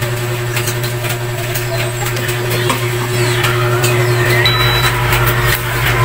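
Small clicks and rustles of plastic rice-cooker parts and a power cord being handled, over a steady low hum.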